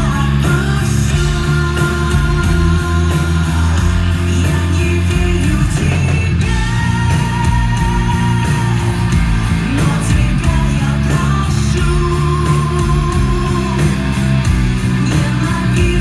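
Live band playing rock-style music: steady low notes under long held melodic lines.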